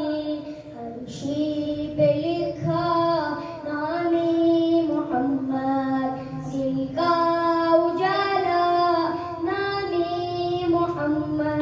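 A boy singing a naat solo into a microphone, with no instruments: long held notes that bend and waver between short breaths.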